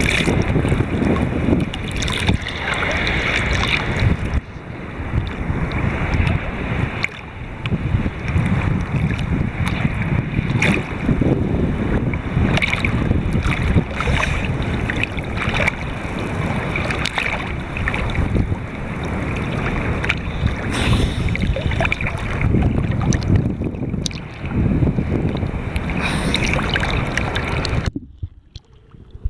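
Seawater sloshing and splashing around the microphone, with wind on the microphone and irregular splashes, then a sudden drop to much quieter about a second before the end.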